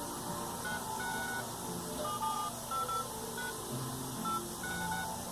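A string of short electronic beep tones at changing pitches, each lasting a fraction of a second, over a steady background noise.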